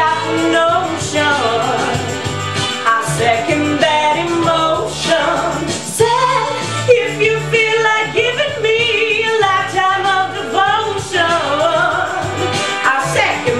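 A woman singing a song solo, her voice sliding between sustained notes, over an instrumental accompaniment.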